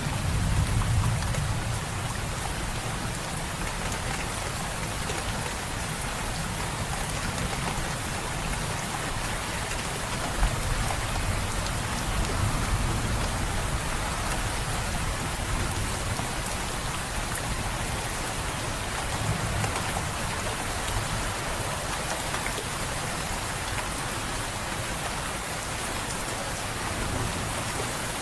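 Steady rain falling, an even hiss throughout. A low thunder rumble dies away in the first couple of seconds, and there is a single short sharp tap about ten seconds in.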